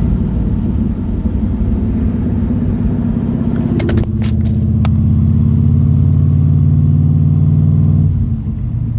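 1969 Chevrolet Corvette V8 with side-mount exhaust, running. A few sharp clicks come about four seconds in, then the engine runs louder and steadier for about four seconds before easing off near the end.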